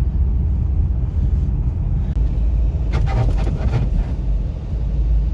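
Kia Sorento XM driving, heard from the cabin: steady low road rumble, with a short burst of grating suspension noise about three seconds in. The owner puts the grating down to play between a worn anti-roll bar and its stabilizer bushings, a noise that gets worse the colder it is.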